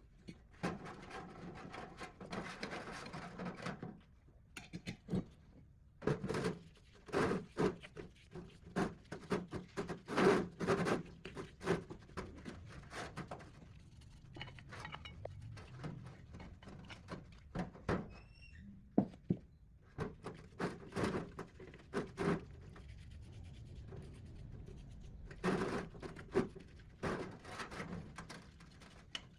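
Irregular series of knocks and clunks from parts and hand tools being handled, with a stretch of continuous scraping or rattling in the first few seconds.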